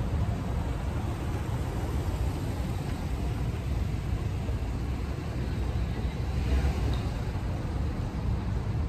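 Steady city street traffic rumble, swelling slightly about six and a half seconds in.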